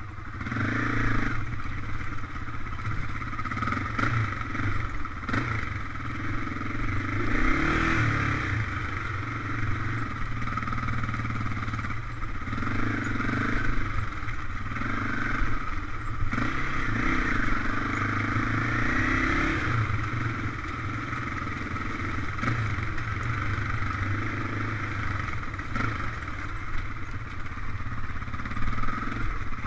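Off-road vehicle engine running on a trail ride, its revs rising and falling again and again with the throttle.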